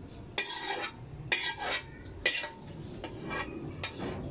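Stainless steel slotted skimmer scraping and clinking against a metal frying pan in about six short strokes, clearing leftover bits of cooked hotcake batter from the pan.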